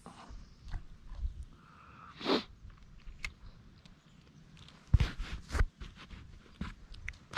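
Close handling sounds from an angler's gear: a short swish about two seconds in, then a quick cluster of clicks and knocks about five seconds in.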